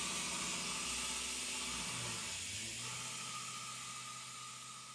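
Tormach 770 CNC mill running a 2D contour pass with a 3/4-inch solid carbide end mill in aluminum: a steady hiss with a low machine hum. The tone shifts about two seconds in, and the sound fades toward the end.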